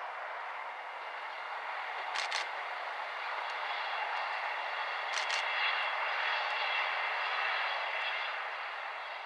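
East Midlands Trains Class 158 two-car diesel multiple unit passing: a steady rumble of engine and wheels that swells and then eases as it goes by. Two pairs of sharp clicks, about two and five seconds in, sound like wheelsets crossing a rail joint.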